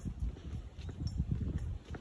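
Low, irregular thumps and rumble on a handheld phone's microphone from walking while filming, several knocks a second, mixed with wind rumble on the microphone.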